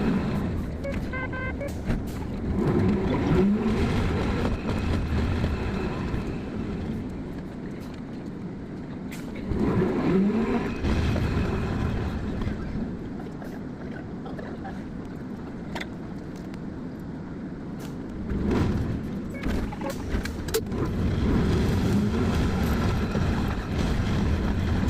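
Hankai Tramway streetcar running, its motor whine rising and falling in pitch several times as it speeds up and slows down, with scattered clicks and knocks.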